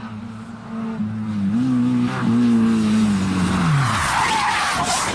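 Rally car engine running at steady revs, its note rising briefly and then falling away about four seconds in. Near the end, loud tyre skidding as the car slides sideways.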